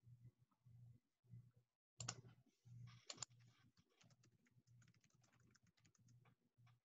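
Near silence with faint rapid clicking from about two seconds in, over a faint on-and-off low hum.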